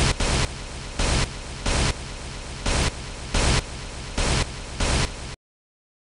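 Static hiss, steady with louder surges roughly every half second to second, cutting off suddenly about five seconds in.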